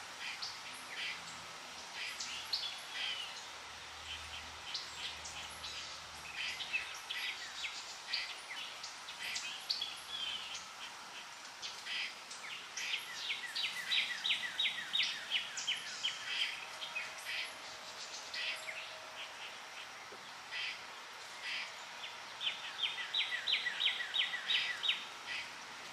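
Birds chirping and singing over the steady rush of flowing water. Two rapid trills of quickly repeated notes stand out, one around the middle and one near the end.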